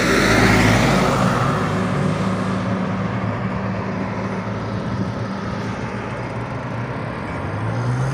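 Road traffic: a vehicle passing close by, its noise loudest about half a second in and then slowly fading, over a steady low engine hum.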